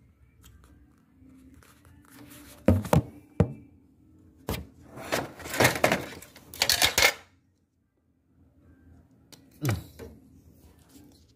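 Handling noise from taking the sensor board out of a Daikin air conditioner's indoor unit: a few sharp plastic clicks and knocks, a couple of seconds of clattering and rustling in the middle, and a single knock near the end.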